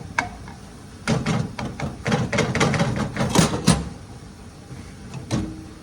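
Utensil chopping up browning ground beef in a pan: a quick run of clacks and scrapes against the pan for about three seconds, then a single knock near the end.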